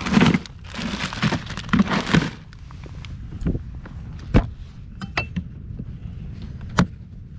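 Plastic bag of ice rustling in a plastic cooler, then the cooler lid knocking shut about four seconds in and a few sharp clicks of its latch near the end.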